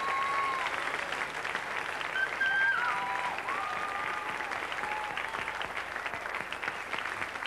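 Studio audience applauding after a live rock performance, with a few cheers over the clapping in the first half.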